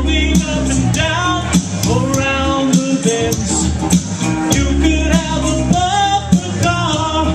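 A rock song: a sung melody over a band with guitar and a steady drum beat.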